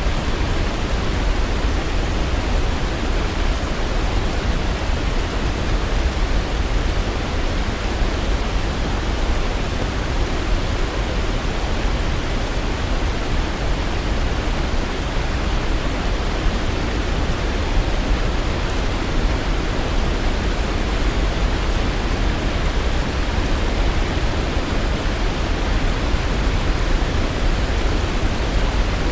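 Waterfall rushing steadily: an even hiss of falling water over a deep low rumble.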